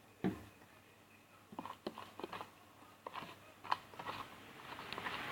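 Slime being stirred in a bowl: a string of short, sticky clicks and taps, with one sharper tick just after the start.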